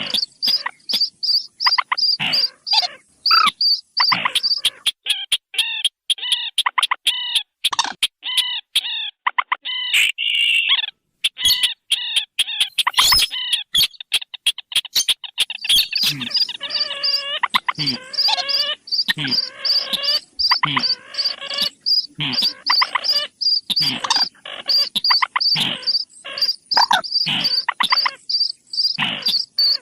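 Bird-lure recording of paddy-field rail calls, the Indonesian 'sintar' and 'mandar', layered together: fast, rapidly repeated pulsed notes over strings of short arched croaking calls, going on without a break.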